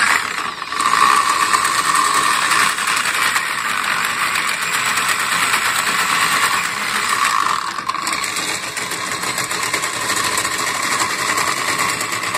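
Electric drill driving a boat winch, its gears clicking rapidly and steadily as it pays out to lower a basket on the lift.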